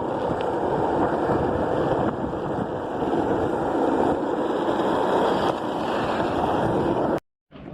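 Wind buffeting the microphone: a loud, steady rushing rumble that cuts off abruptly about seven seconds in.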